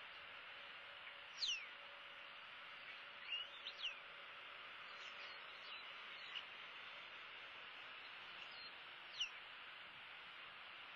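Short, high whistled bird calls, each sliding down in pitch: one about a second and a half in, a quick cluster of three or four a couple of seconds later, a few faint ones, and a last one near the end, over a steady hiss.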